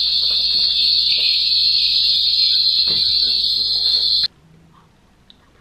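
Loud, steady high-pitched electronic tone, alarm-like, that cuts off suddenly about four seconds in, leaving only a few faint clicks.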